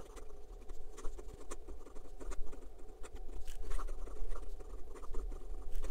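Majohn S7 fountain pen writing quickly on lined notebook paper: its stiff extra-fine nib scratches in a run of short, irregular strokes. The nib has a lot of drag, feedback bordering on unpleasant scratchiness even after smoothing.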